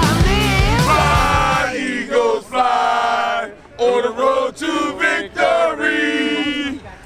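Intro music ends about two seconds in. Then a group of men sing a chant together in loud, drawn-out phrases, with short breaks between them.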